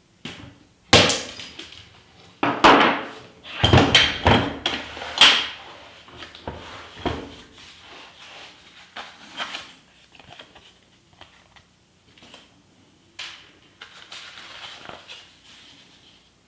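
Unboxing handling noise: a run of sharp knocks, clatters and rustles as the packaging and a hard plastic socket-set case are handled and opened, loudest in the first five seconds, then softer scattered clicks and rustling.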